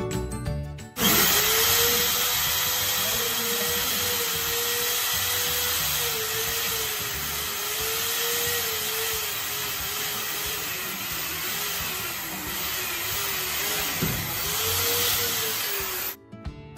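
Corded electric drill drilling into a screen door frame for about fifteen seconds, starting suddenly about a second in and stopping abruptly near the end. The motor whine wavers, dipping and recovering as the bit takes load.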